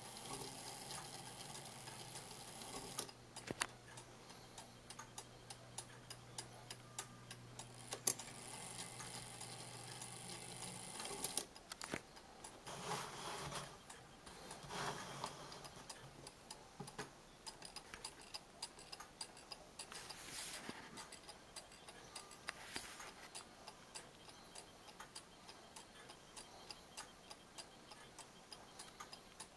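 Haller striking clock movement running on a test stand, its escapement ticking at an even pace as the pendulum swings, freshly cleaned, rebushed and oiled. A few louder knocks and brief rustles come in between, and a low steady hum stops about eleven seconds in.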